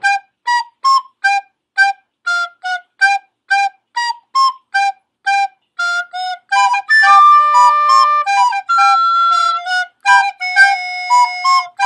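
Background music: a single high melody line of short, detached notes, about three a second, with a few longer held notes in the second half and no bass or drums.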